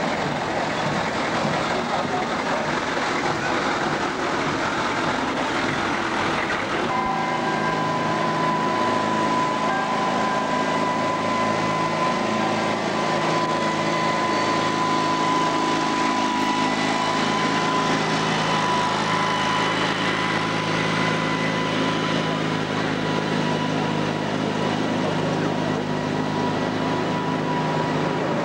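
Military vehicles driving slowly past in a street parade, their engines running, with crowd chatter. About seven seconds in a steady high tone joins and holds for most of the rest.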